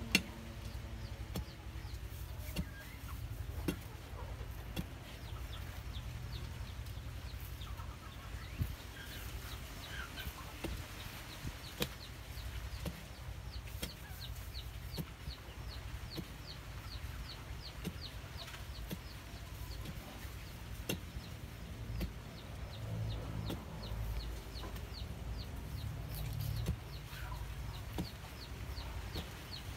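Iron bar striking into packed soil every few seconds as a post hole is dug, with chickens clucking and short high chirps around it.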